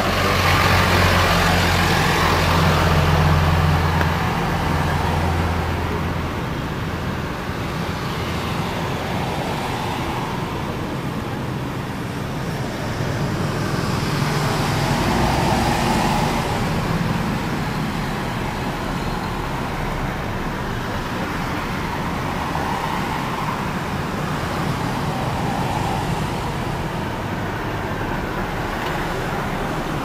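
Road traffic: a steady low engine hum for the first few seconds, then a continuous wash of traffic noise that swells now and then.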